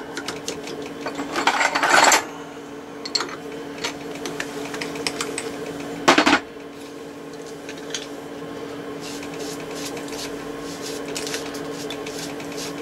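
Metal-on-metal clinks and scraping as a chuck is worked loose from a machine, with a loud clatter about six seconds in, over a steady machine hum.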